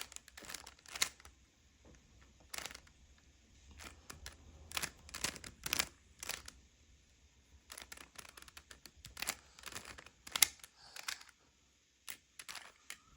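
Rubik's cube being twisted by hand: plastic layers clicking and clacking in irregular quick clusters, with short pauses between them.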